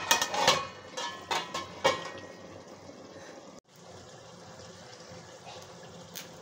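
A glass pot lid clinks and knocks several times as it is set onto an aluminium kadai of simmering mutton curry in the first two seconds. After a cut, only a faint steady hiss remains.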